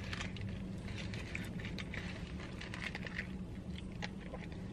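Biting into and chewing a fried chicken sandwich, with small crunching clicks over a steady low hum.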